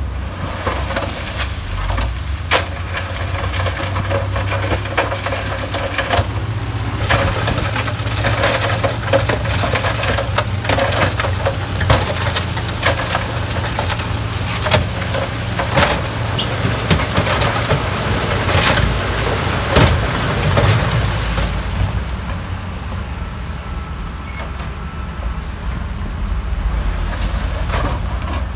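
Heavy diesel engines of a crawler bulldozer and dump trucks running steadily, with frequent clanks and knocks of rock being tipped and pushed. The knocking thins out after about twenty seconds, leaving the engines.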